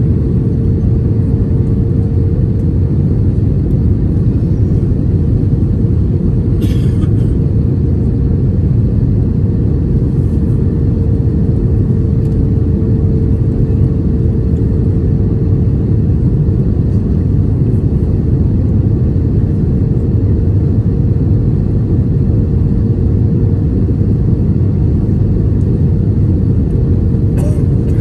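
Airbus A320 cabin noise from a window seat over the wing during the descent: a steady, loud rumble of engines and airflow with a constant hum above it. There is a brief tap about a quarter of the way in and another near the end.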